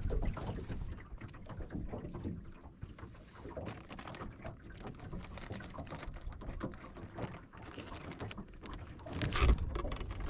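Wind rumbling on the microphone and water slapping against an aluminium jon boat's hull, with scattered clicks and knocks from the rod and boat being handled. A louder knock or gust comes about nine seconds in.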